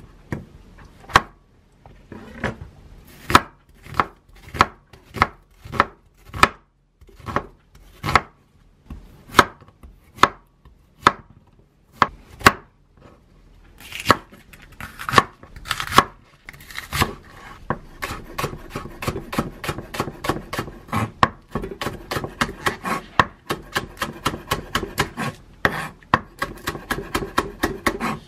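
Chef's knife cutting vegetables on a wooden cutting board. First come separate cuts about every half second through king oyster mushrooms, then quicker, steady chopping of bok choy and green onions later on.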